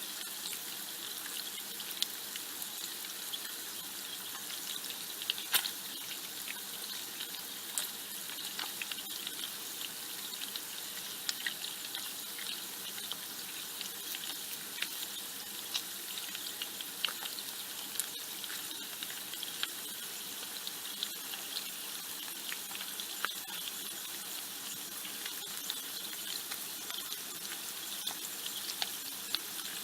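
Bacon frying in a pan: a steady hiss of sizzling fat with frequent irregular crackles and pops.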